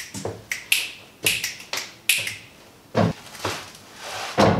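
Footsteps on the floor of a gutted school bus: a run of sharp clicks about three a second, then two heavier knocks as a toilet is gripped and shifted on the floor, the second near the end the loudest.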